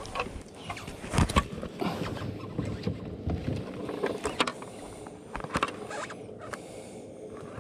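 Irregular small knocks, clicks and rattles of fishing gear against a plastic kayak hull, over a steady background hiss.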